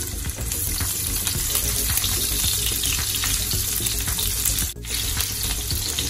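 Sliced onion and garlic sizzling and crackling in hot cooking oil in a pot while being stirred with a silicone spatula, with a brief break about five seconds in.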